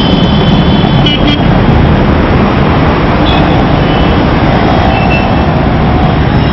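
Loud, steady road traffic noise, with a few brief high-pitched tones over it.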